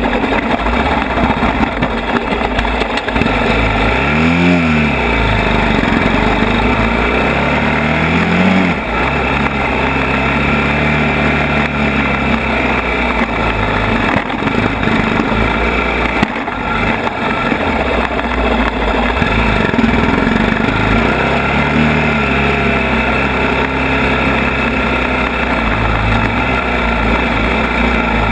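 ATV (quad) engine running while being ridden over a rough trail, revving up and easing off. Sharp revs come about four seconds in and again around eight seconds, with another rise around twenty-two seconds.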